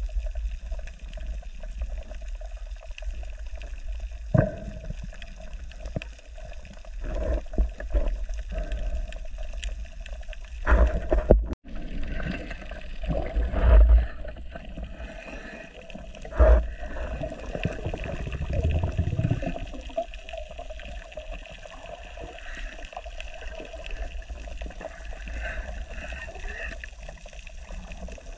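Underwater water noise picked up by a diver's camera: a steady low rush with gurgling, and several louder surges and knocks near the middle.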